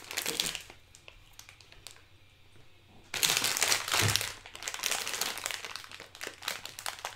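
Plastic packaging crinkling and crackling as it is handled, loudest from about three to five seconds in.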